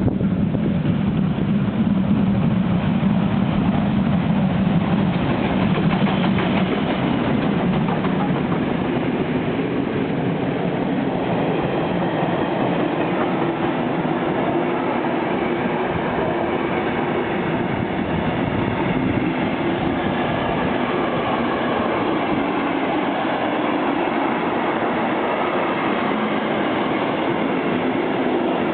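Long passenger train rolling past at steady speed, its coaches' wheels clattering over the rails. The noise is a little louder for the first several seconds, then holds steady.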